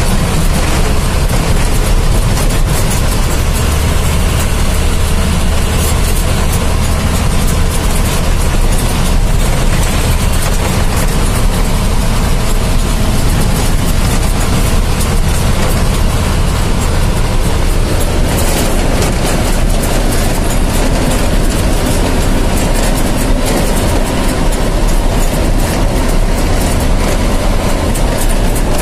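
Steady, loud engine hum and road and wind noise heard from inside a vehicle driving at road speed.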